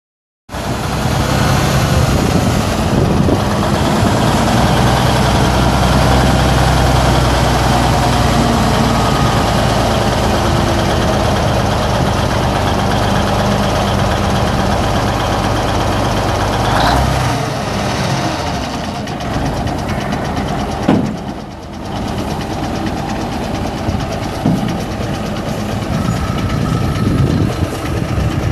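Cummins 855 turbo diesel inline-six of a 1976 Ford 9000 dump truck running steadily. Its note changes a little past the middle, and a single sharp knock sounds a few seconds after that.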